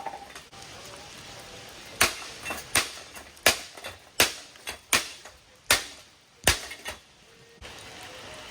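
Hard blows smashing a ceiling fan: about ten sharp, irregularly spaced impacts over seven seconds, each ringing briefly, then they stop.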